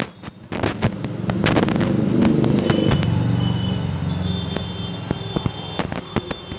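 Firecrackers going off in sharp, irregular cracks, while a passing vehicle's low rumble rises and fades in the middle.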